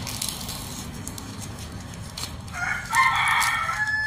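A rooster crowing once, a long call that starts a little past halfway and runs on past the end. Before it, faint rustling and crackling of coconut palm leaflets being plaited by hand.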